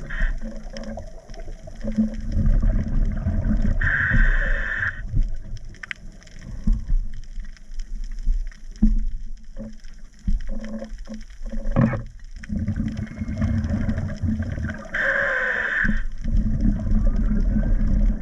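Underwater sound of a scuba dive: an irregular low bubbling, gurgling rumble, with two short hissing bursts about eleven seconds apart.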